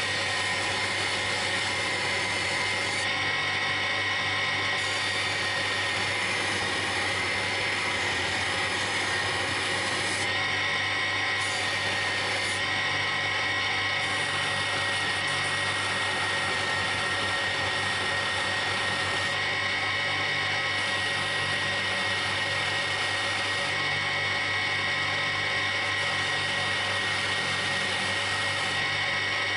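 Belt-driven bench buffing machine running steadily with a constant high whine, while a small metal part is held against its spinning cloth mop.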